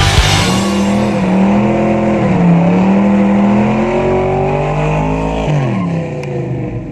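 Classic Chevrolet Nova doing a burnout: the engine is held at high revs that rise and fall while the rear tires spin, then the revs drop off about five and a half seconds in.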